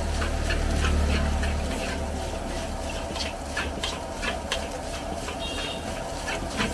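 A long metal spatula scraping and knocking against a large steel wok during stir-frying, in irregular strokes about two or three a second, with a frying sizzle. Underneath is the gas burner's steady low rumble, heaviest in the first couple of seconds.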